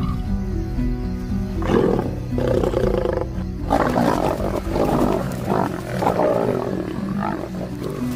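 A lioness snarling and roaring in several harsh bursts, loudest about four to six seconds in, as she charges adolescent lions to drive them off her cub. Background music plays throughout.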